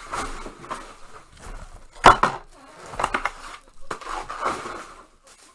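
A trading-card box being handled and opened on a table: irregular rustling and scraping of cardboard and packaging, with sharp knocks, the loudest about two seconds in.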